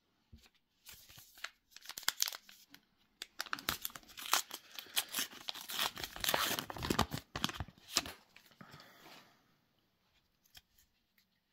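Trading-card booster pack wrapper being torn open and crinkled: a dense run of crackling and tearing that starts about a second in and dies away a couple of seconds before the end.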